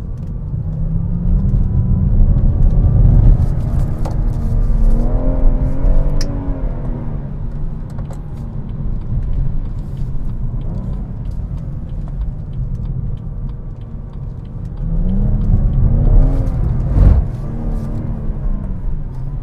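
BMW M140i's turbocharged straight-six pulling hard in first gear, heard from inside the cabin: the revs climb for several seconds, ease off, then climb again about 15 s in. A single thump comes a couple of seconds into the second climb.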